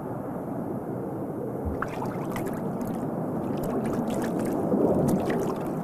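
Underwater rushing and gurgling with air bubbles popping, the pops coming thick and fast from about two seconds in: bubbles streaming off a swimming otter.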